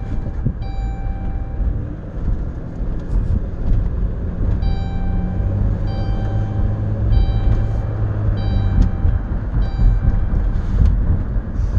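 Dodge Caravan minivan driving slowly, heard from inside the cabin: a steady low engine and road rumble. Through the second half a high beep repeats about every half second.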